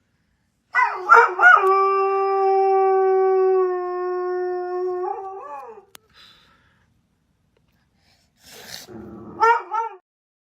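A dog howling: a few short yips, then one long, steady howl held for several seconds that wavers as it ends, and a few shorter howls near the end.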